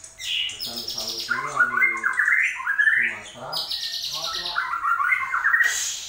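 White-rumped shama (murai batu) singing: several runs of quick, varied chirps and whistles with short breaks between them.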